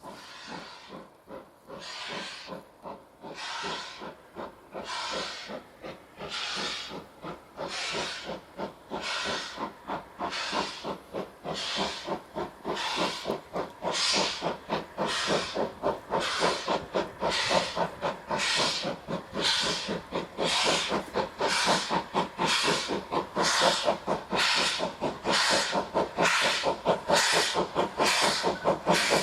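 Ivatt 2MT 2-6-2T steam tank engine's two-cylinder exhaust beating hard as it works up a steep gradient. The chuffs come evenly, quickening from about one a second to nearly two a second and growing steadily louder as the engine approaches.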